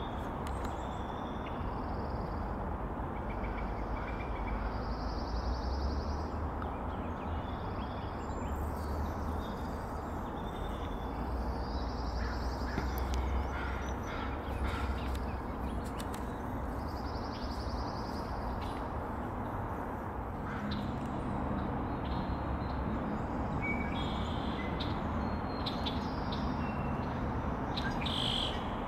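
Female bald eagle calling: short series of high, thin chattering notes repeated every few seconds, summoning her mate for mating. Steady traffic-like rumble and hiss lies underneath.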